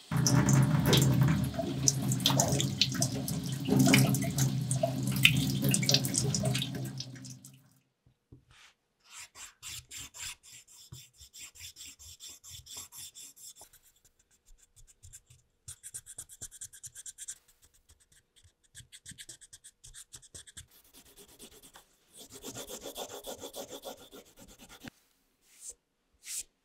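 Tap water running into a stainless steel sink for about eight seconds. Then a wooden edge burnisher is rubbed back and forth along the edge of a leather strap in several spells of quick, even strokes, burnishing the edge.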